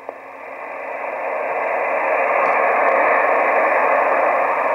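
Band noise hissing from a Kenwood TS-480 receiving 20-metre upper sideband through a 2.4 kHz filter with no DSP, between contest transmissions. The hiss swells up over about the first two seconds, then holds steady.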